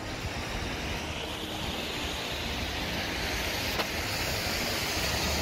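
Outdoor road traffic and wind rushing on a phone microphone: a steady, even noise that grows slightly louder, with a single click about four seconds in.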